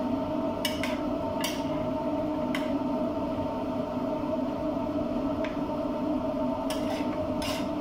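Wooden spatula and metal spoon stirring bottle gourd and shrimp in a wok, with about six sharp clicks of utensil against the pan, over a steady low hum.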